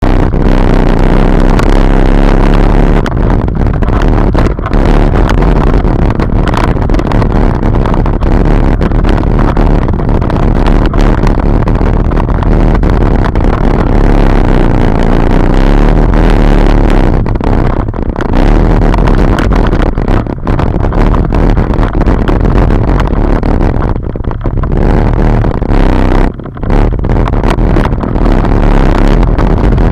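Arctic Cat Wildcat UTV driving off-road, its engine running hard and loud throughout, with a few brief drops in level.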